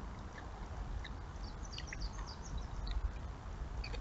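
A small bird chirping in a quick run of short high notes about midway through, over a steady low rumble.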